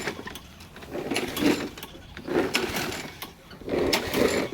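Craftsman self-propelled lawn mower being pull-started: the recoil cord is yanked over and over, about once every second and a quarter, turning the engine over with a whirring rasp each time without it catching.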